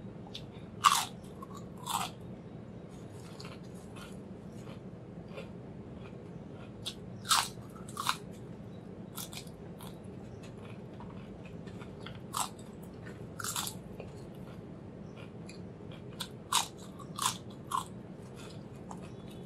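Crisp potato chips, ridged and thin-cut, being bitten and chewed: sharp crunches at irregular intervals, often two close together, with quieter chewing crackles between.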